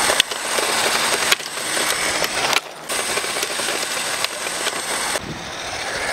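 Brushless-motor RC drift car running on asphalt: a dense hiss of motor and tyres sliding on the road, with small clicks, jumping abruptly in level a few times.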